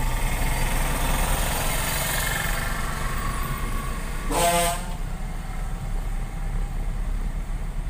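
Steady road and engine rumble inside a moving car's cabin, with one short vehicle horn honk about four seconds in.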